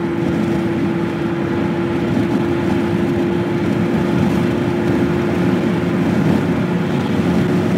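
Steady road and wind noise of a car cruising at highway speed, heard from inside the cabin, with a constant droning hum.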